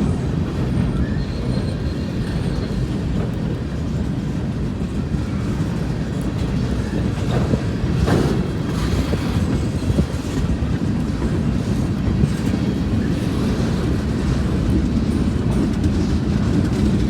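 Freight cars of a Union Pacific work train rolling past: a steady rumble of steel wheels on rail, with a few faint, brief high squeals.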